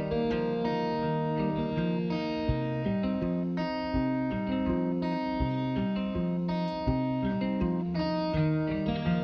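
Instrumental background music: a plucked-string melody of held notes changing about twice a second.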